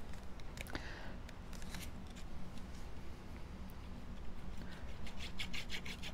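Card stock handled briefly with a light rustle, then the tip of a liquid-glue bottle scraping across card stock in quick short strokes, several a second, starting about four and a half seconds in.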